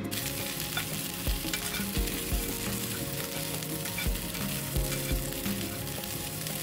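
Cauliflower florets sizzling in hot oil in a nonstick wok, turned over and tossed with a spatula.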